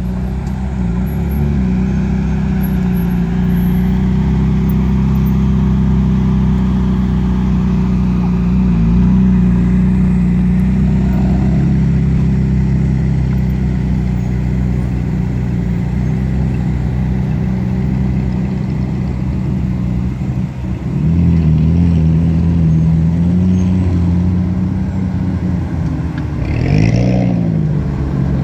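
Sports car engines running at low speed as cars, among them an Alfa Romeo 4C Spider and a Ferrari 360 Modena, pull slowly through a junction one after another. A steady engine drone runs throughout, and near the end there is a short rev that rises and falls in pitch.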